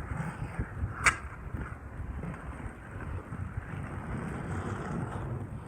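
Inline skate wheels, 60 mm on 3D-printed PLA sole frames, rolling steadily with a low rumble and wind on the microphone, and one sharp click about a second in.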